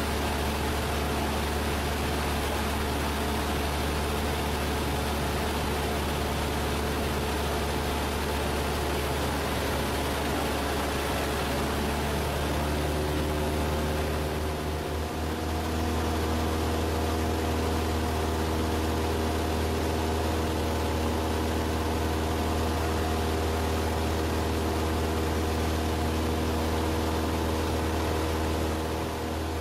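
Cessna 172's piston engine and propeller droning steadily in flight, heard from inside the cabin. About halfway through, the pitch of the drone shifts.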